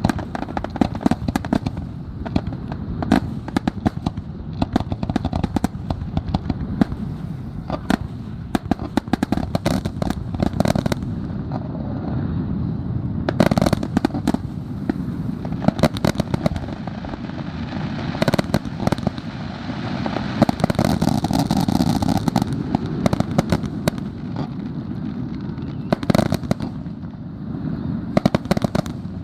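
Fireworks finale: a dense, nonstop barrage of shell bursts and crackling over a steady low rumble, with a few louder booms standing out.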